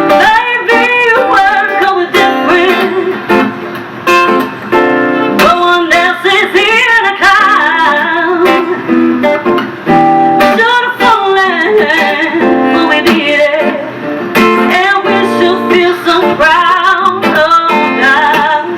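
Live performance of a laid-back pop song: strummed guitar with a woman singing over it.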